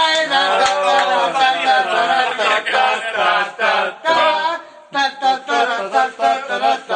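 Men's voices singing together without instruments, with long held notes at first, then shorter rhythmic syllables from about five seconds in.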